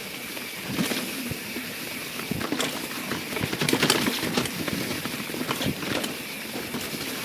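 YT Jeffsy 27 mountain bike rolling fast down a leaf-covered dirt trail: a steady rush of tyre noise over wet leaves and dirt, broken by many irregular clicks, rattles and knocks as the bike hits roots and bumps.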